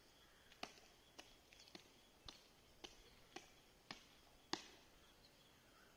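Faint, evenly spaced footfalls, eight in all at about two a second: drill marching in step.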